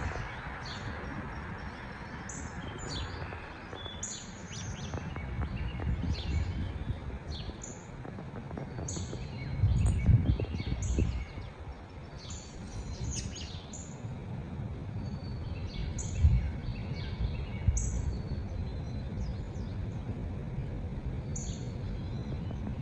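Birds chirping: short, high calls come every second or so throughout. Under them runs a low rumble that swells briefly about ten seconds in.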